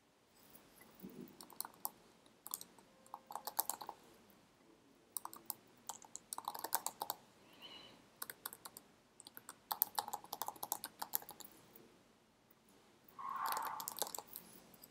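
Typing on a computer keyboard in several short bursts of quick key clicks, with pauses between.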